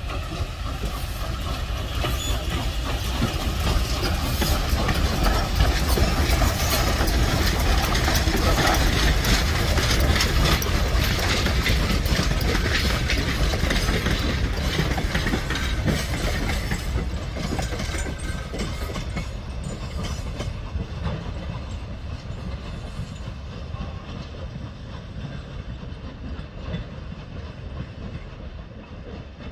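Norfolk and Western 611, a J-class 4-8-4 steam locomotive, working under heavy exhaust with a rapid beat as it passes, louder in the first half and then fading steadily as it and its train pull away.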